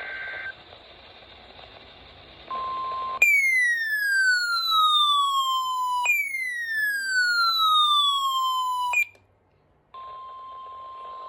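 Emergency Alert System alert audio: the tail of a two-pitch digital header burst, then two loud electronic siren-like sweeps, each falling in pitch over about three seconds. After a second of silence comes a steady single-pitch alert tone.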